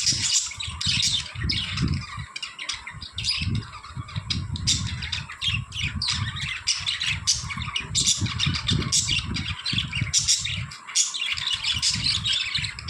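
A flock of budgies (budgerigars) chirping and squawking in a rapid, continuous chatter, with a low rumbling underneath.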